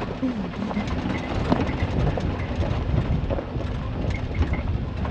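Suzuki Jimny 4x4 rumbling and rattling over a rough off-road track, with irregular knocks and jolts over a steady low drone.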